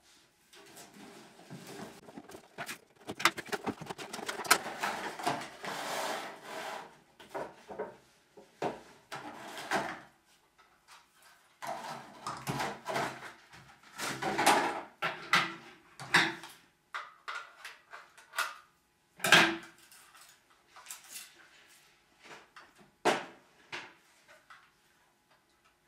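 Clear plastic blister packaging and box of a 1:24 scale diecast model car being handled and taken apart: irregular rustling and clicking in short spells, with a sharper knock about three-quarters of the way through.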